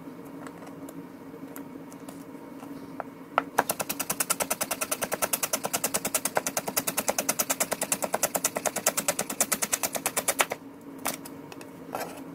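Kitchen knife rapidly chopping vegetables on a cutting board: an even run of quick strokes starting about three seconds in and lasting about seven seconds, followed by a couple of single knocks.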